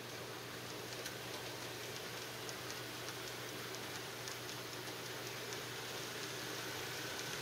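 Model train rolling past: a steady hiss and faint hum, with scattered faint ticks of the cars' wheels over the track.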